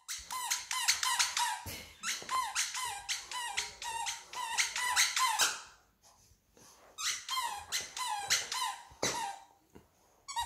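Golden retriever chewing a plush Lamb Chop dog toy, squeezing its squeaker in quick runs of squeaks, about three a second. The squeaking stops for about a second six seconds in, then starts again, with one last squeak near the end.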